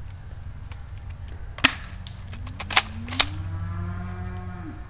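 Airsoft gun shots: a sharp crack, then a quick double and one more, each short. Under them a cow moos once, a long low call that rises in pitch and then holds for about two seconds.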